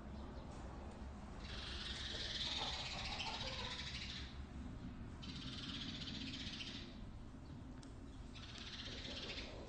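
Chickens in a barn giving three long, harsh squawks, the first lasting about three seconds, over a steady low hum.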